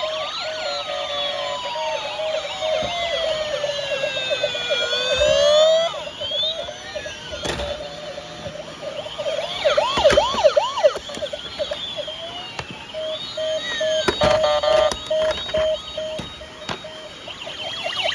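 Several battery-powered toy emergency vehicles, a fire truck and ambulances, playing their electronic sirens at once: overlapping slow rising and falling wails over a steady beeping pulse, with quick warbling yelps about ten seconds in.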